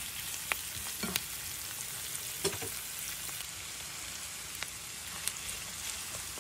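Shrimp, onion and green beans sizzling in oil in a frying pan, a steady hiss broken by scattered sharp clicks as a spatula stirs and taps the pan.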